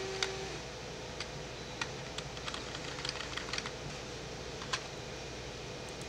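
Typing on a computer keyboard: a scatter of short, irregular key clicks while entering numbers into a spreadsheet.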